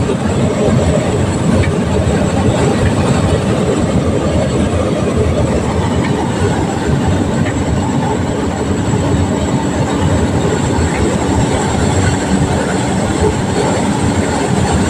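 Cabin noise of a small single-engine propeller plane: the piston engine and propeller running with a steady rush of air, heard from inside the cabin as the plane comes in low over the runway to land.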